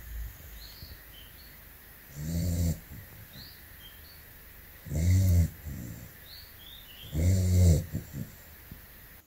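Young Jindo-mix puppy snoring in its sleep: three long snores, one about every two and a half seconds.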